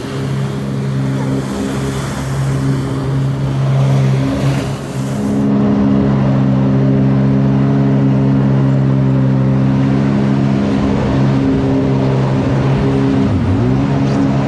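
Engine of a 2021 Sea-Doo Spark Trixx jet ski, a Rotax 900 ACE three-cylinder, running under steady throttle, its revs easing down and back up near the end.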